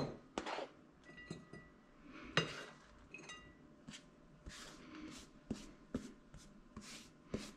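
A plastic cutting board knocks against a ceramic plate in a few light clinks, some with a short ring. Then come soft repeated swishes, about two a second, as a hand sweeps grated cheese off the board onto the plate.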